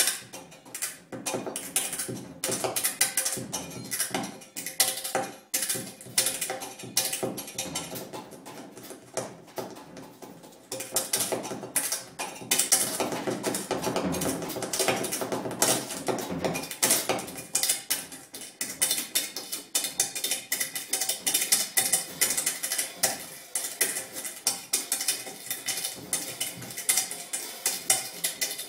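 Drum kit played in free improvisation: a dense, uneven clatter of quick, small strikes and rattles on the drums and cymbals, with no steady beat. It grows louder and busier about eleven seconds in.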